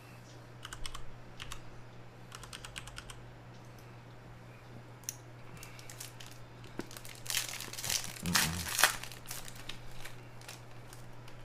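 A foil trading-card pack being torn open and crinkled in the hands, loudest about eight seconds in. Before that come a few clusters of light clicks.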